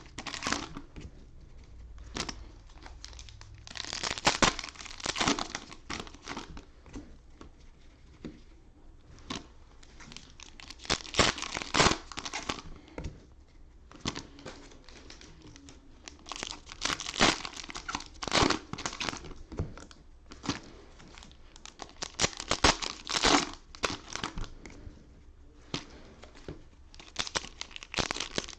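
Cellophane wrappers of trading-card packs being torn open and crumpled, in irregular bursts of crinkling with short pauses between.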